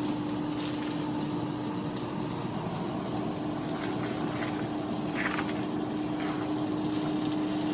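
Ground-beef burger patties frying in a hot pan: a steady sizzling hiss with a few faint crackles, over a constant low hum.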